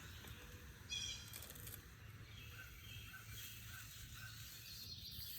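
Quiet outdoor ambience, with a short high bird call about a second in and a few faint chirps later.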